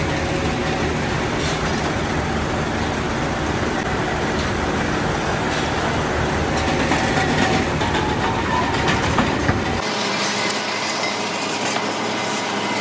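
Steel rolling-mill machinery running: a steady, loud mechanical rumble from the powered roller conveyor and mill drive as hot steel bars are fed along the rollers. About ten seconds in the deep rumble drops away and sharper metallic knocks stand out.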